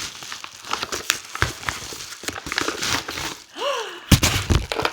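Cardboard and paper packaging rustling and crinkling, with irregular clicks, as a subscription box's contents are pulled out. About three and a half seconds in there is a brief voiced exclamation, and a sharper knock follows just after.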